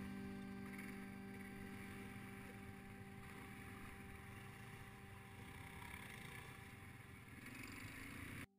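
ATVs running, faint and slowly fading, with a steady engine hum under the noise, cut off suddenly near the end.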